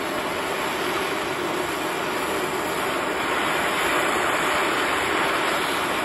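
Gas blowtorch flame burning steadily with a continuous hiss, heating a steel bolt until it glows and changes colour before quenching in oil.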